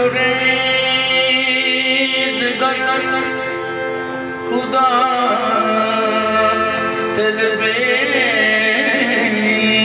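Live qawwali: harmoniums holding steady chords under a singer's voice, which slides and wavers through ornamented phrases from about halfway through.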